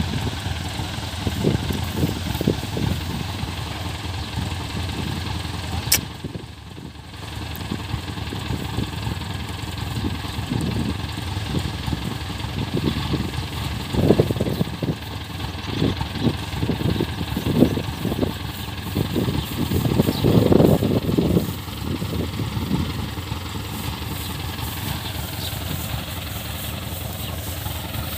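Engine running steadily, with a short drop in level about six seconds in and a stretch of uneven louder pulses in the middle.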